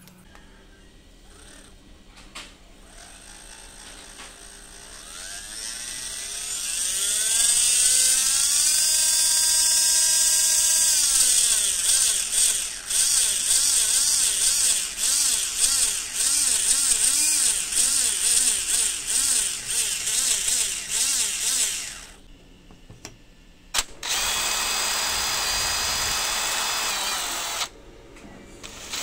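2215 3200kv brushless motor driving a 3D-printed PLA mini outboard: its whine rises steadily in pitch over several seconds, holds, then runs unevenly at changing speed until it stops about 22 seconds in. A couple of seconds later an electric drill bores into the printed plastic hull for a few seconds.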